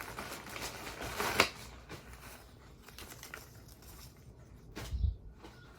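Plastic packaging crinkling as it is handled and torn open, with one sharp rip about a second and a half in. The handling goes quieter after that, and there is a short thud near the end.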